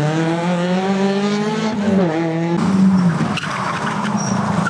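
A rally car's engine revving hard under acceleration, rising in pitch with a brief dip at a gearchange about two seconds in. After a sudden change, a Subaru Impreza rally car's flat-four runs on while its tyres skid as it slides through a bend.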